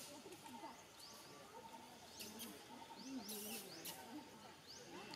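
Faint outdoor ambience: short rising chirps repeat every half second to a second, over faint wavering calls or distant voices. A brief hiss comes about three seconds in.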